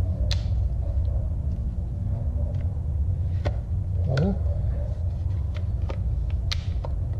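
Scattered sharp plastic clicks and knocks as a Work Sharp knife sharpener's housing and angle guide are handled and fitted, over a steady low rumble.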